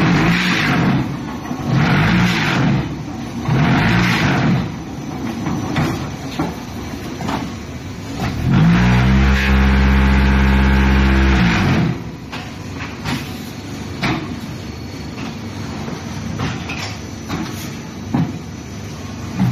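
TPM10000G concrete block machine running through a moulding cycle: repeated mechanical surges about every two seconds, then about eight seconds in a loud steady hum as the vibration motors spin up, hold for some three seconds and wind down, shaking the mould to compact the concrete. Afterwards lighter clatter and knocks as the machine moves on.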